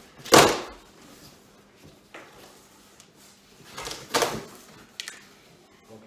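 A large cardboard box being cut and pulled open: two loud bursts of ripping and scraping cardboard, the first about half a second in and the second around four seconds in, with a few small clicks between.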